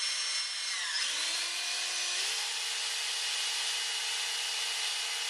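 DeWalt 18V cordless drill running with a steady whine. About a second in, it slows to a lower pitch, then picks up slightly and holds steady.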